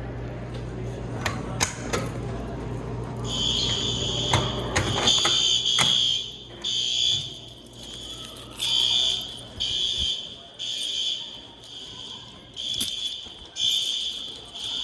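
Building fire alarm horns sounding for a fire drill: a high-pitched electronic tone starts about three seconds in, then pulses on and off about once a second. A few knocks are heard before it starts.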